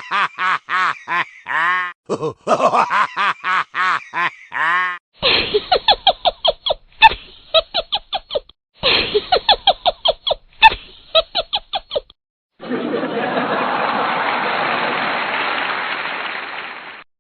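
Edited-in comedy laugh sound effects: about five seconds of a high-pitched laugh in short repeated bursts, then a different, choppier laugh with rapid pulses. After that comes about four seconds of steady rushing noise that tapers off near the end.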